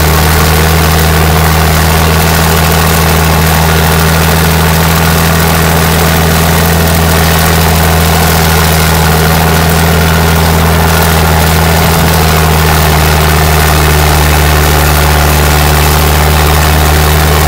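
Old Volvo road grader's diesel engine running loud and steady under load as it pulls a sled weighted with about two tons of cement blocks, heard close up from behind.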